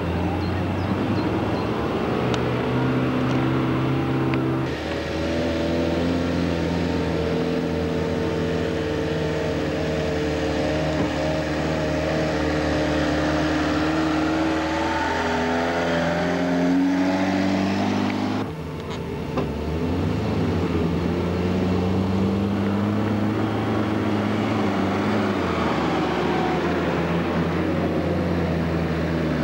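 Off-road 4x4 engines running under load and revving as the vehicles climb and drive across slopes, the pitch rising and falling with the throttle. The sound changes abruptly twice where separate takes are cut together.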